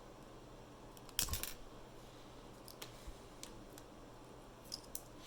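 Small metal tools and lock parts being handled: a short cluster of sharp clicks about a second in, then a few faint scattered ticks.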